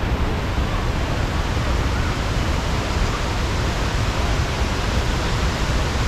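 Vazhachal waterfall's water rushing steadily, an even roar without breaks.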